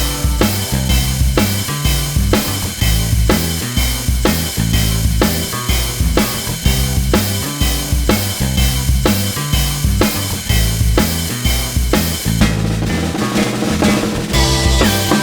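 Background music driven by a drum kit, with a steady beat of kick and snare over a bass line.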